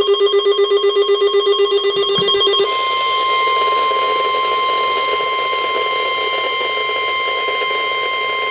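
Weather radio alert: a buzzy ringing tone pulsing about four times a second, then, about two and a half seconds in, the steady 1050 Hz NOAA Weather Radio warning alarm tone, the signal that a warning is about to be broadcast.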